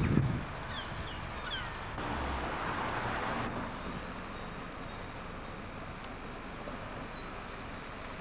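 Steady outdoor background noise, with a few faint, short bird chirps about a second in and again near the end.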